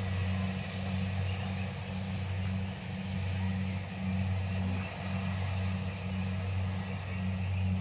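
Kubota DC-70 combine harvester's diesel engine running steadily with a low drone, along with the noise of the working machinery.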